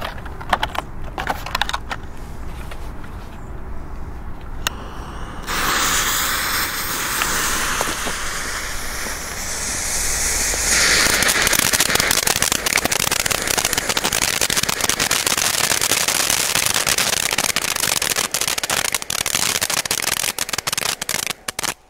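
Hypnotical ground fountains burning, a spray of sparks hissing. The hiss starts about five seconds in, grows louder with dense crackling about halfway through, and cuts off abruptly just before the end.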